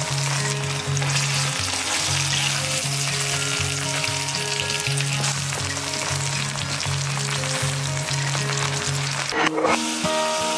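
Food sizzling and frying in a hot pan, a dense steady crackle that drops out for a moment near the end. Background music with a low repeating bass line plays underneath.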